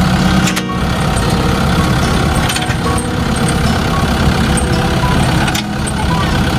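Tractor engine idling steadily, with a few short sharp clicks over it.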